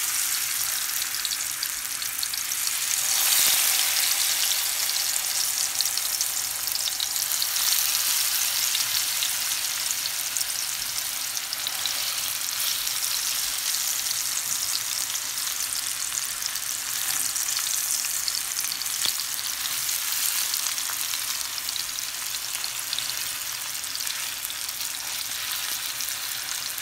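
Tilapia steaks shallow-frying in hot oil in a frying pan: a steady, loud sizzle. It swells louder about three seconds in and again near eight seconds as more pieces are laid into the oil.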